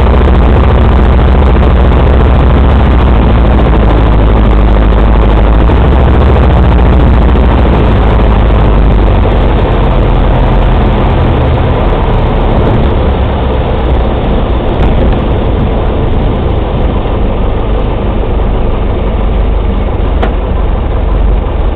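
Piper PA-12 Super Cruiser's engine and propeller running, heard loud from inside the cockpit during a short beach landing. A steady low hum that eases off somewhat around halfway as power is reduced on the rollout.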